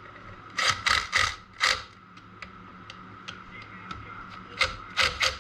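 Hand work on the quad's engine: a few sharp clacks and knocks of tools and parts, four in the first two seconds and three more near the end, with light ticks between, over a steady faint whine.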